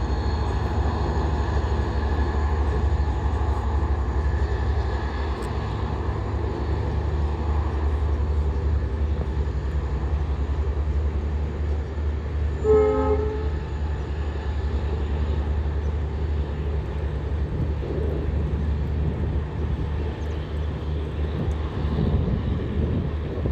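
A WDP4D diesel locomotive's EMD 16-710 two-stroke V16 engine running with a steady low throb under the rumble of the moving train. About halfway through, the locomotive's horn gives one short blast.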